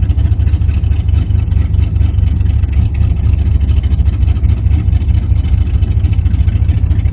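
1986 Chevrolet Camaro's engine idling steadily, a low, even pulsing with no change in speed.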